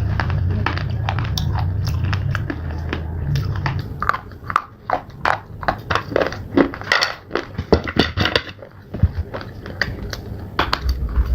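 Close-miked crunching and chewing of slate: a run of sharp cracks and crunches that grows denser and louder from about four seconds in, over a low rumble in the first few seconds.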